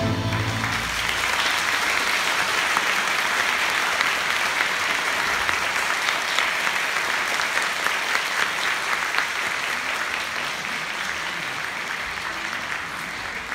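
Audience applauding just as the band's final chord cuts off; the clapping runs on steadily and eases off a little toward the end.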